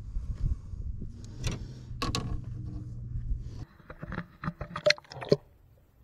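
Wind rumbling on the microphone with a couple of handling knocks, then a quick run of sharp splashes and drips as a redfish is lowered into the water for release.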